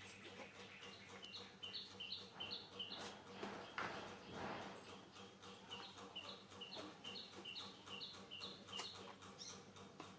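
A bird calling faintly: a high two-note chirp repeated quickly in two runs, with a brief rustle about four seconds in.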